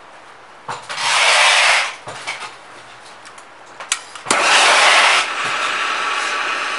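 Handheld trigger-start gas torch heating a copper seam for soldering. A sharp click is followed by about a second of flame hiss. About four seconds in there are more clicks, and the torch runs again, loud at first, then steadier until the end.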